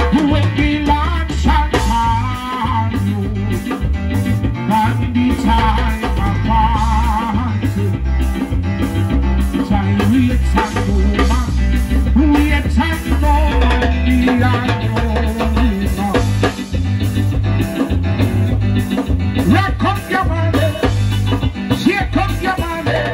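Live band playing with a drum kit, electronic keyboard and a heavy pulsing bass, while a man sings into a microphone.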